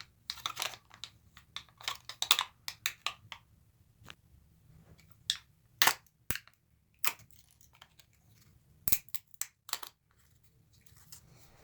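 Irregular sharp clicks and crinkling from handling a new CR2032 coin cell battery and its plastic packaging close to the microphone, with bunches of clicks near the start and a few louder single clicks later on.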